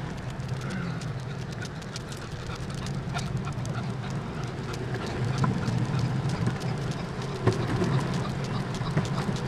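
Longboard wheels rolling over asphalt, a steady low rumble with many sharp clicks scattered through it.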